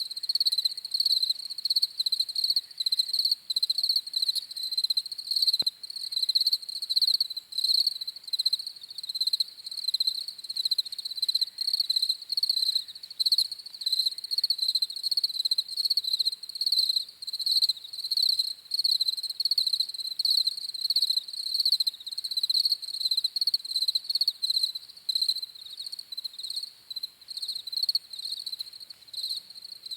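Crickets chirping steadily in a continuous, rapidly pulsing high-pitched chorus.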